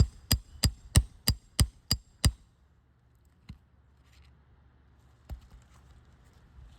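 Roofing hammer striking a steel nail-removal bar hooked on a roofing nail under a shingle: quick, even, ringing blows, about three a second, about eight of them, stopping a little over two seconds in as the nail is driven out. A couple of faint ticks follow.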